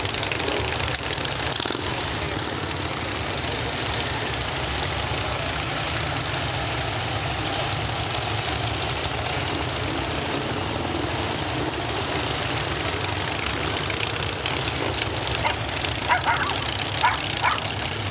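Motorcycles, mostly cruisers, riding past one after another at parade pace, their engines a steady, even rumble. Near the end a dog barks a few times over the engine noise.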